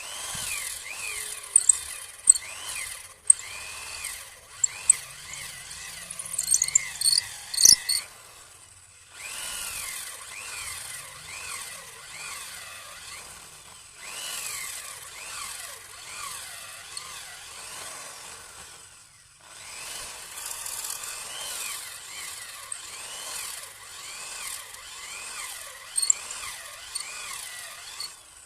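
Electric hand drill boring into wood to cut out a mortise, running in three long stretches with short pauses, its pitch rising and falling again and again as the bit bites and frees. Sharp clicks and snaps stand out in the first stretch.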